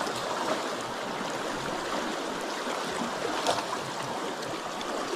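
Steady rush of a trout stream, water flowing and trickling over rocks.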